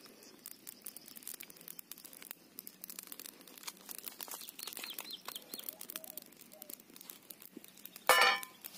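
Wood fire crackling and popping under an empty iron kadai, with a bird chirping briefly in the middle. About eight seconds in, a bar of soap dropped into the hot pan lands with a short, loud clank that rings for a moment.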